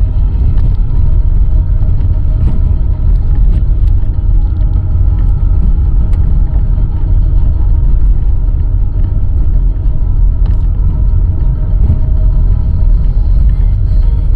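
Steady low rumble of a motor vehicle, engine and road noise with a deep drone and a few faint clicks.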